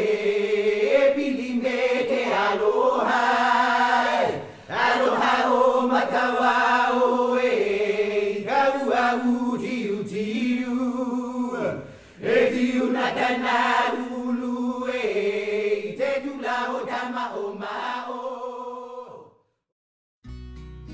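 Hawaiian chant sung in long phrases with brief pauses between them, stopping about nineteen seconds in. After a moment of silence, another piece of music starts near the end.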